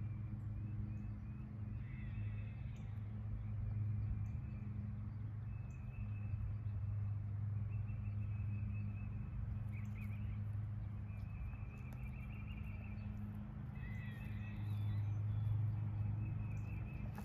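Outdoor woodland ambience: a steady low hum with short high bird chirps scattered through it and a few faint ticks.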